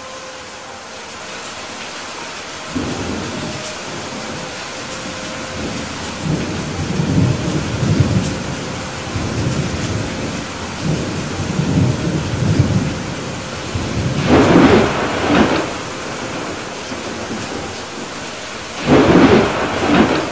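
Rainstorm: a steady hiss of rain with thunder rumbling in waves from about three seconds in, and two louder thunder peaks, one past the middle and one near the end.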